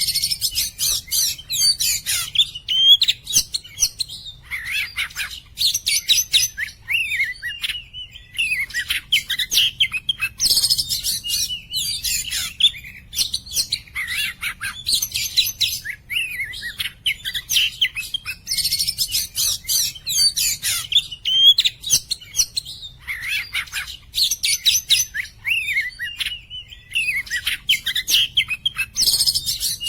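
Oriental magpie-robin (kacer) singing nonstop, in varied gliding whistled phrases broken every several seconds by harsh, scratchy rattling stretches.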